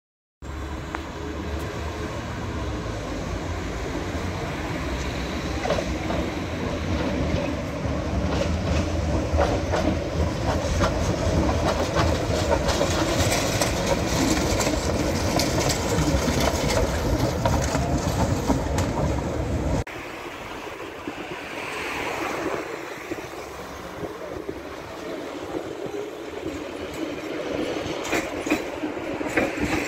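Articulated city trams running along street rails, with a steady rumble and clattering clicks from the wheels on the track, mixed with road traffic. About two-thirds of the way through the low rumble drops away abruptly. After that a tram passes more quietly, with a brief rising whine.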